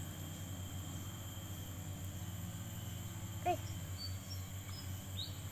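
Outdoor background of insects calling steadily over a low steady hum, with a brief pitched call about three and a half seconds in and a few short high bird chirps just after.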